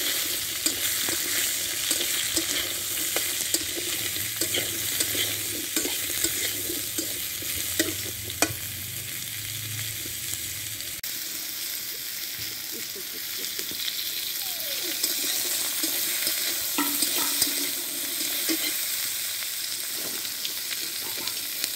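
Potato and drumstick (moringa pod) pieces sizzling in oil in a metal wok while a metal spatula scrapes and clicks against the pan as they are stirred. The spatula clicks are frequent in the first half and sparser later, and the steady sizzle carries on.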